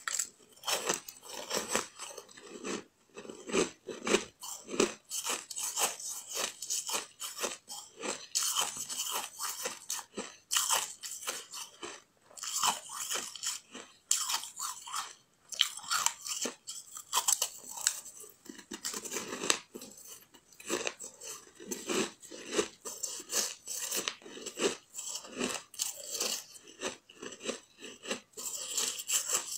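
A person biting and chewing a bun-shaped block of compacted ice, pressed and frozen without added water, with dense, irregular crunching throughout.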